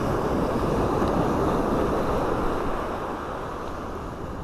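Ocean surf washing up the beach, swelling over the first couple of seconds and then fading, with wind rumbling on the microphone.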